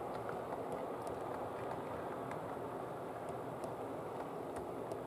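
Model train wagons rolling past on the track: a steady rolling rumble of small metal wheels on model rails, with a few faint clicks from the wheels crossing rail joints.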